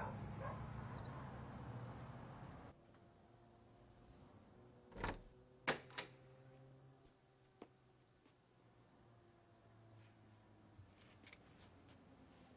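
Soft rushing hiss that cuts off sharply about two and a half seconds in, then two knocks on a door about half a second apart, and small clicks of a door latch near the end.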